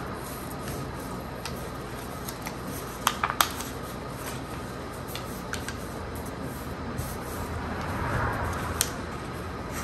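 A paper airplane being folded and creased by hand, with soft papery rustles and a quick cluster of sharp crackles about three seconds in, over a steady low background noise.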